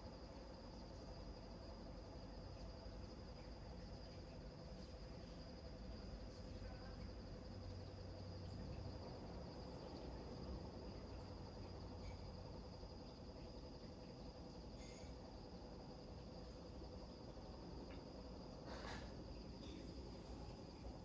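Crickets chirping steadily in a continuous high trill, over a faint low rumble.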